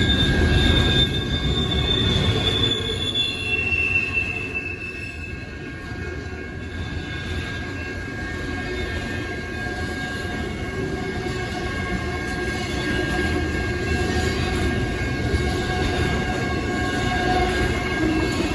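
BNSF intermodal freight train rolling past with a steady rumble and high-pitched wheel squeal. One squeal slides down in pitch over the first few seconds. The sound dips about five seconds in, then builds again.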